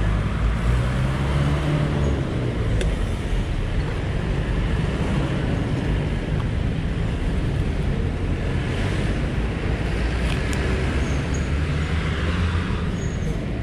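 Steady low rumble of motor-vehicle engines and traffic, with a few faint clicks.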